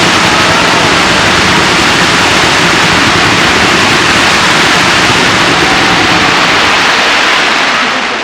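Fireworks barrage whose many crackling shells merge into one loud, steady hiss-like roar with no separate bangs standing out, fading near the end.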